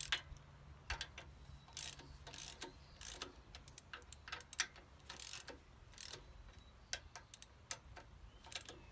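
Irregular sharp metallic clicks of a hand tool turning the Allen-head bolts that clamp a sickle bar mower's drive spud, snugged down a little at a time on each side. A faint low hum sits under the first few seconds.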